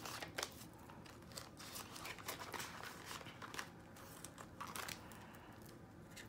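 Soft crinkling and rustling of clear plastic zipper envelopes and paper bills in a ring binder as cash is tucked away and the pages are turned, with scattered light clicks.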